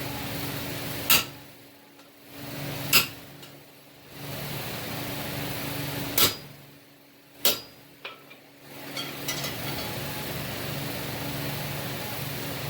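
Four sharp hammer knocks, irregularly spaced, over a steady hum of a fan or blower, with a few light clicks near the end.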